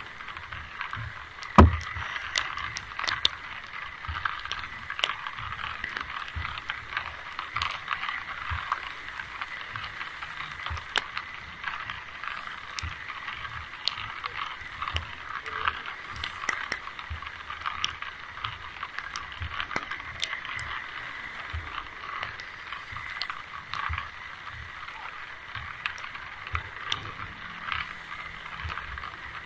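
Steady rain hissing and pattering, with many small sharp drip ticks and a loud knock about a second and a half in.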